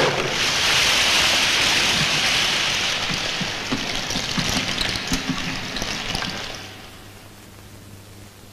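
Water pouring and gushing out in a steady rush for about seven seconds. It starts suddenly with a knock, has a few small knocks inside it, and fades away near the end.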